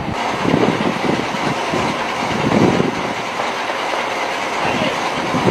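Steady rumble and rush of a vehicle on the move, heard from inside it, with road noise swelling and easing every second or so.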